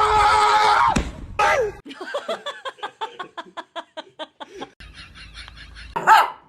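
A dog vocalizing: a held howl-like call breaks off about a second in, then a falling whine and a quick run of short yips, about four or five a second, ending in one sharp bark near the end.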